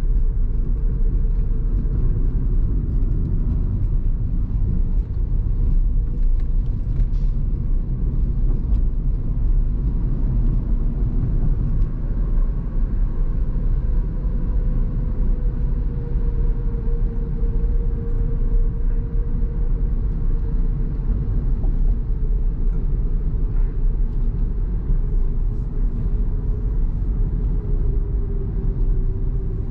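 Steady road and tyre rumble of a car driving at speed, heard from inside the cabin, with a faint hum that slowly wavers up and down in pitch.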